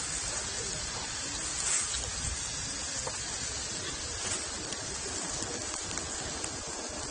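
Meat sizzling on a hot grill plate: a steady hiss with scattered small pops.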